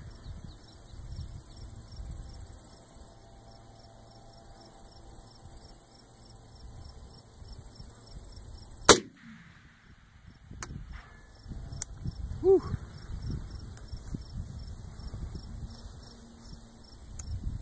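A single AR-10 rifle shot about nine seconds in, sharp and by far the loudest sound, followed over the next few seconds by a couple of faint ticks. Insects chirp steadily in an even, repeating rhythm throughout, over low wind rumble.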